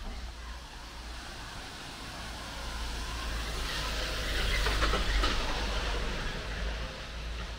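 A vehicle passing close by, its rumble and hiss building to a peak about five seconds in and then fading away.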